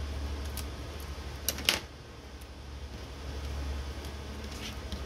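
Hands handling a small paper piece and a craft tool on a cutting mat: a few light clicks, and one sharper tap a little under two seconds in, over a steady low hum.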